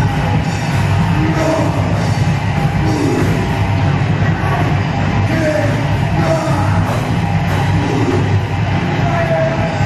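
Heavy metal played loud and dense without a break, with yelled vocals over the band.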